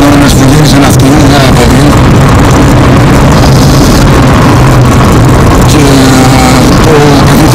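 A car engine running loudly at speed over steady road noise, its pitch rising and falling.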